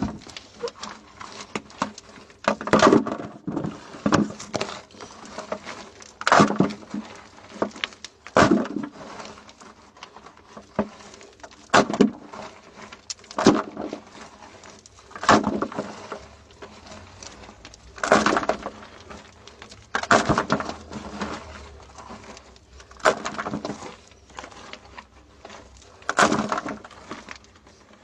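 Digging by hand in rocky, gravelly soil. A sharp scrape or strike against dirt and stones comes every second or two, with crumbling and rattling of loose earth between.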